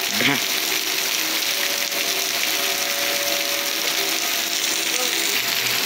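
Heavy rain pouring and splashing off the gutters as a steady hiss. Faint steady tones of outdoor tornado warning sirens sound in the distance.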